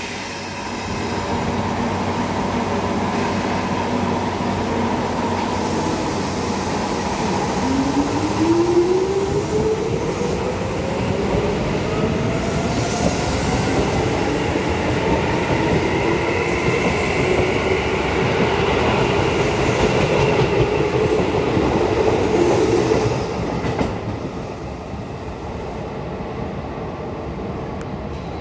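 Keisei 3400-series electric commuter train pulling out of a station. Its traction motors give a whine that starts about eight seconds in and rises steadily in pitch as the train gathers speed, over the running noise of the cars. The sound drops to a quieter steady rumble near the end.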